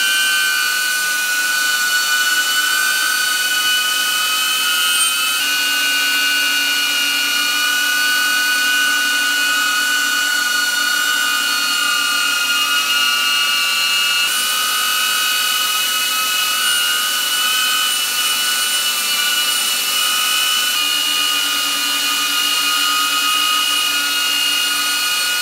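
DJI Avata quadcopter hovering on AFOIS low-noise propellers: a steady high propeller-and-motor whine made of several held tones over a hiss, shifting slightly in pitch a few times.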